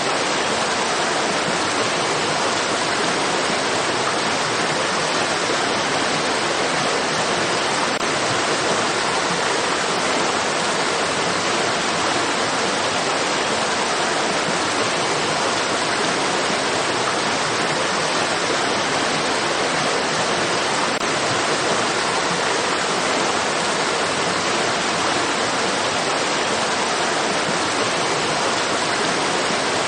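Running water rushing steadily, an even hiss that does not change.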